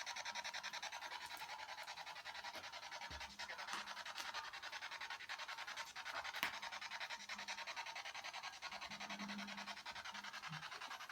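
Electronic static hiss pulsing rapidly and evenly, many pulses a second, from the investigators' own equipment, which they then switch off; a few faint clicks stand out now and then.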